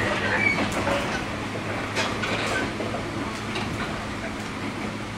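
Running noise inside a JR 103 series electric train car: wheels rolling on the rails with scattered clicks and a steady low hum, getting slightly quieter.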